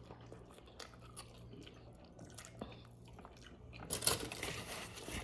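Close-up chewing of tough goat meat, with faint wet mouth clicks. About four seconds in comes a louder crackling, crunching stretch lasting about a second.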